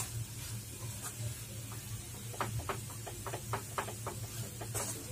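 A spoon stirring coconut-and-jaggery modak filling in a steel kadhai, giving a run of short scrapes and taps against the pan, about three or four a second, in the second half. A steady low hum lies underneath.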